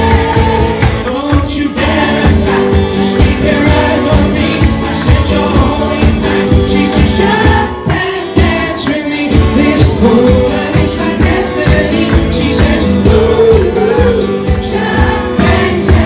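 Live band playing a pop song, with a steady drum beat under singing.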